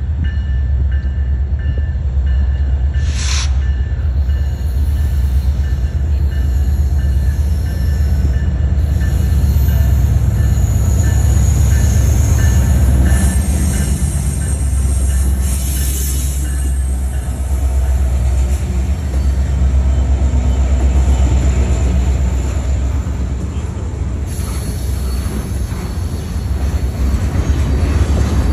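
Union Pacific diesel freight train approaching and passing close by: a steady, heavy, deep rumble that grows loudest as the locomotive draws level, about ten to thirteen seconds in. Freight cars then keep rolling past with continuous wheel-on-rail noise.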